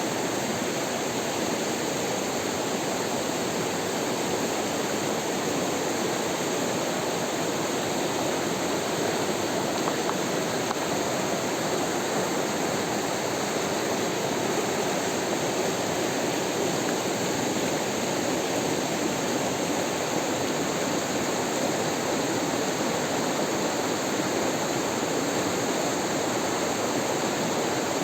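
Steady rush of flowing water, unchanging throughout.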